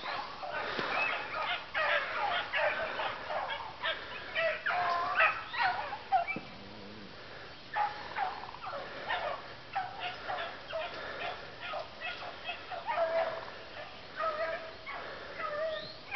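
Pack of rabbit-hunting dogs baying and yelping in a long run of short calls, several voices overlapping at times: the dogs running a cottontail rabbit's trail.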